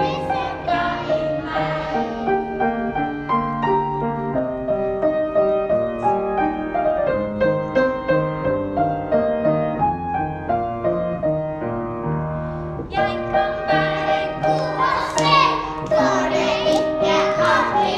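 Children's choir singing with upright piano accompaniment. The voices stop about two seconds in and the piano plays an interlude alone, and the children come back in about two-thirds of the way through.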